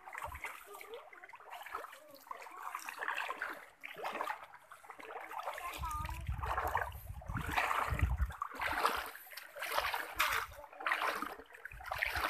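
Splashing and sloshing of shallow muddy pond water as a child wades and sweeps a dip net through it, with a low rumble for a couple of seconds midway.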